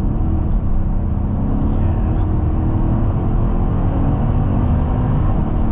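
Mercedes-AMG E63's twin-turbo V8 running under load, heard from inside the cabin: a steady engine drone with small shifts in pitch.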